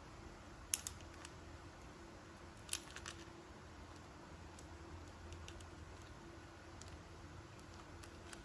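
Quiet handling of toy packaging: a few sharp plastic clicks and taps, with a pair about a second in and another cluster about three seconds in, then fainter ticks.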